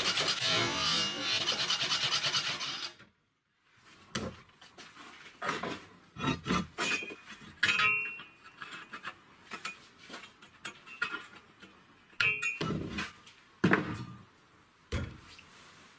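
A homemade motor-driven saw rasping through a steel U-channel, stopping suddenly about three seconds in. After a short gap come scattered clinks, knocks and scrapes of metal pieces being handled, two of them with a brief metallic ring.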